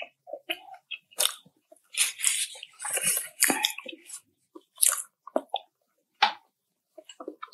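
Close-miked crunching and chewing of crisp food. A dense run of crackling bites comes in the first few seconds, followed by slower, scattered chews.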